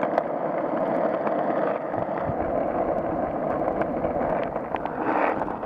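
Skateboard wheels rolling over rough asphalt: a steady rolling rumble with a few small ticks from cracks and grit under the wheels.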